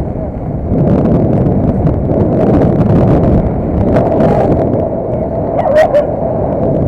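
A vehicle running on the move, with wind rumbling on the microphone and a few short clicks or rattles.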